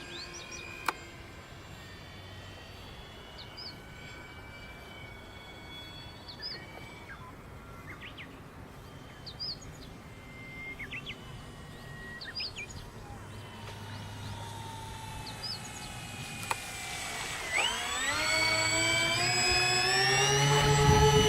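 Electric motors and propellers of an Avios Albatross HU-16 RC flying boat whining in several tones. The whine slowly drops in pitch and fades, then rises sharply and grows louder about three-quarters of the way through as the motors are throttled up. Short bird chirps are heard in the quieter middle.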